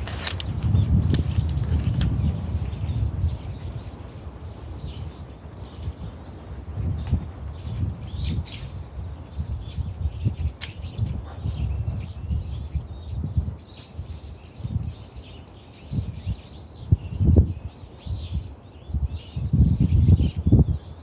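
Small birds chirping and singing over gusts of strong wind rumbling on the microphone; the gusts are loudest in the first few seconds and again near the end.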